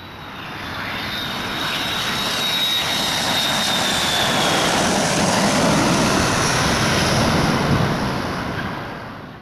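Jet airliner flying past: a rush of engine noise that swells in over the first few seconds, peaks past the middle and fades out at the end. A high turbine whine sinks slightly in pitch and dies away about halfway through.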